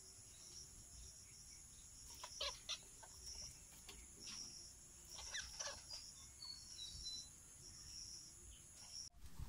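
Faint, scattered bird calls, a few short ones in the middle, over a steady high insect trill.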